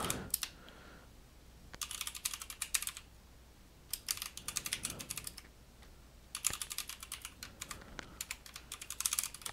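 Typing on a computer keyboard: three runs of quick keystrokes with short pauses between them.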